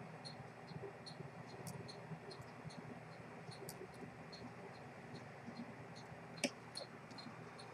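Faint, even ticking of a clockwork escapement, about three ticks a second, with one sharper click of small metal parts about six and a half seconds in.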